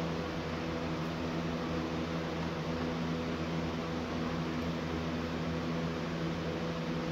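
Steady machine hum with several constant tones over an even hiss, unchanging throughout, like a running room appliance such as a fan.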